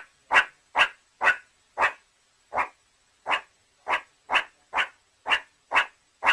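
Meerkat giving a long run of short, sharp calls, about two a second, each one brief and alike, with short silent gaps between them.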